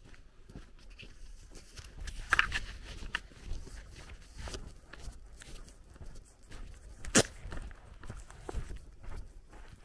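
Footsteps walking on a dirt and gravel lane, with a few sharp clicks; the loudest is a single short click about seven seconds in.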